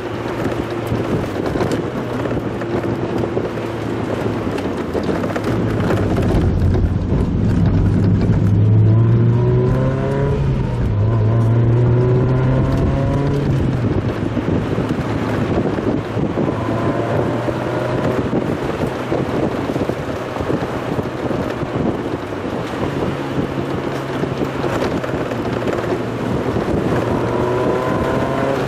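Mazda Roadster's engine running on a downhill mountain drive, heard from inside the car over steady road and wind noise, on sped-up footage. The revs climb and drop several times, running loudest between about a quarter and half of the way through.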